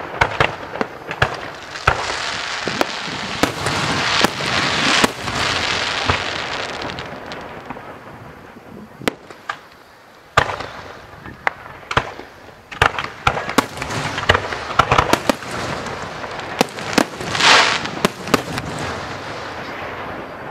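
Fireworks going off: many sharp bangs at irregular intervals, with stretches of dense crackling and a quieter lull about halfway through.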